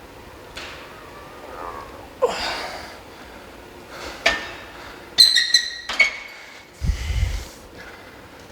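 A loud, strained exhale from a lifter straining under a heavy barbell squat. It is followed by a quick series of ringing metal clanks from the loaded steel barbell and plates, and a deep thud.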